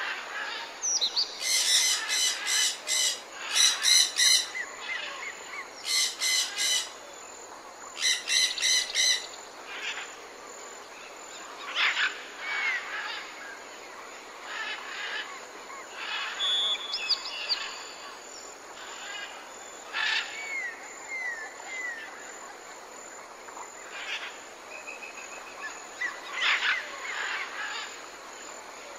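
Songbirds singing and calling. A harsh, buzzy trill comes four times in the first nine seconds, then scattered chirps and short falling whistles.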